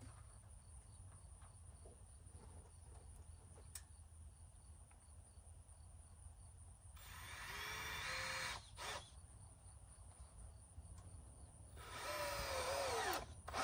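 Power drill driving screws into the wooden frame, in two runs of about a second and a half each, the motor's whine sliding down in pitch as each run stops.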